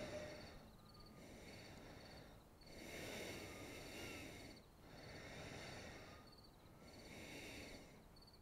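Faint, slow breathing through a twin-cartridge half-face respirator, about four airy swells of breath, each lasting roughly two seconds with short pauses between.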